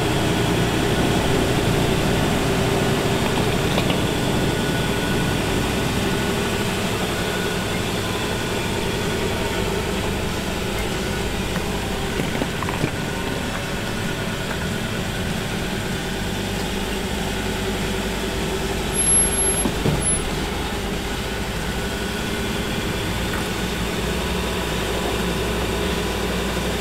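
Automatic Ford Ranger's engine pulling at low revs as the truck crawls over rock ledges. The note eases off through the middle and rises again near the end, and there are a few short knocks, the loudest about twenty seconds in.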